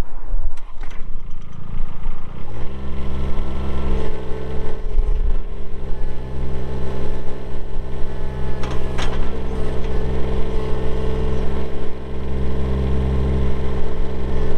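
Bobcat E20 mini excavator's Kubota diesel engine cranking for about two seconds, then catching with a quick rise in pitch and settling into a steady idle.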